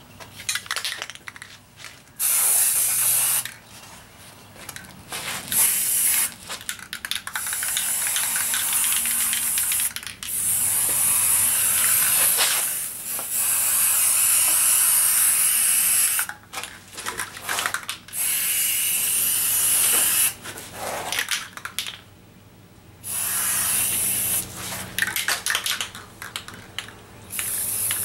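Aerosol spray-paint can spraying in about eight bursts of hiss, each one to three seconds long, with short breaks between them.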